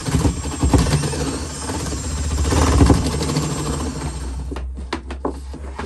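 Power drill boring into a painted wall panel, the motor running steadily under load for about four and a half seconds before stopping, followed by a few clicks and knocks.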